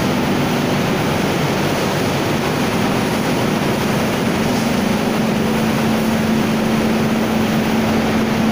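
Flour mill machinery running steadily: a loud, even noise with a constant hum in it.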